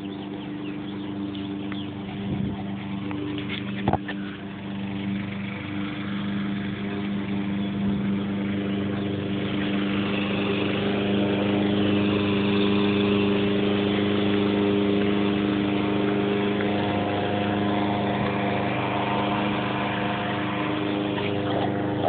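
A steady mechanical hum with a constant pitch, growing louder over the first ten seconds or so and then holding steady. A single sharp click about four seconds in.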